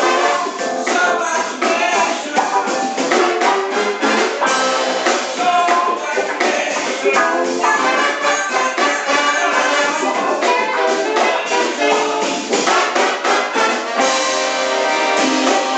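Big band of trumpets, trombones and saxophones playing over a drum kit, a busy passage of short accented horn notes; about two seconds before the end the horns settle into held notes.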